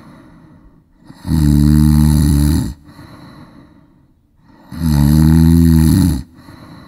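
A person snoring: two loud snores, each lasting about a second and a half and about three and a half seconds apart, with soft breathing between them.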